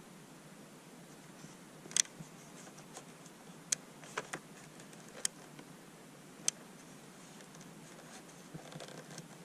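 A handful of short, sharp clicks at irregular intervals, the loudest about two seconds in, over a faint steady hiss, with a soft rustle near the end.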